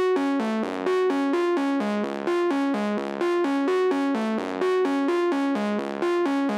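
Background music: an electronic keyboard playing a quick repeating arpeggio of short notes, about five a second.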